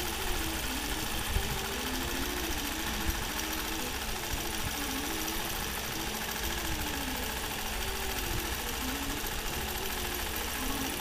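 Nolting Pro longarm quilting machine stitching under IntelliQuilter computer control: a steady motor hum whose pitch rises and falls again and again, with light ticks.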